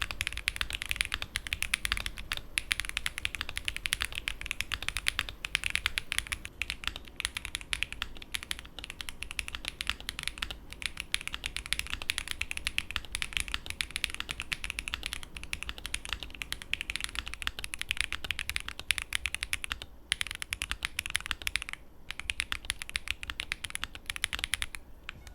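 Fast, continuous typing on a custom Tofu 65 2.0 mechanical keyboard with lubed Gateron Baby Kangaroo tactile switches on a polycarbonate plate, capped with GMK Striker 2 keycaps. A steady stream of keystrokes with a few brief pauses.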